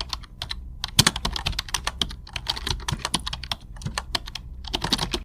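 Rapid, irregular clicking of computer keyboard typing, which stops abruptly near the end.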